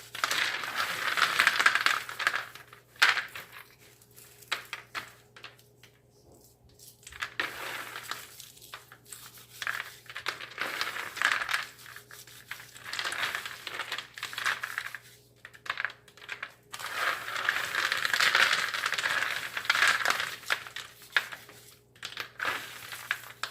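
Dry roasted peanuts rubbed together between the hands to loosen their papery skins: a rustling, crackling scrape that comes in spells of a few seconds, with short clicks of the nuts knocking together.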